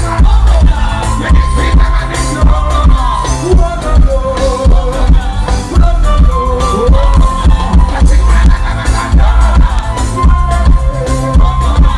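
Loud music with heavy bass and a regular drum beat under a held melody line, with some singing.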